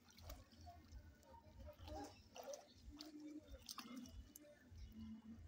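Faint, scattered splashing of pool water as children paddle and kick.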